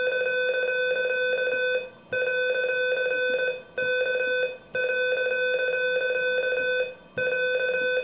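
Morse code sidetone from an electronic iambic keyer, worked by a dual-lever paddle: a buzzy mid-pitched beep keyed very fast, at about 40 words per minute, in runs of one to two seconds with short breaks between words.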